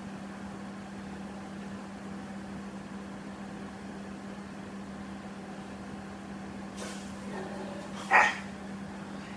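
Steady low electrical hum, with one short, sharp, louder noise about eight seconds in.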